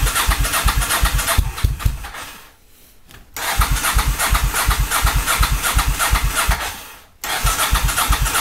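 Motorcycle's electric starter cranking a cold engine in three tries of two to three and a half seconds each, a rhythmic chugging of compression strokes, with short gaps between tries. The engine does not catch.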